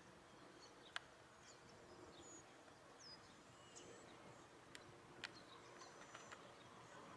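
Faint, scattered bird chirps over quiet outdoor background noise, with a few sharp clicks, the loudest about a second in.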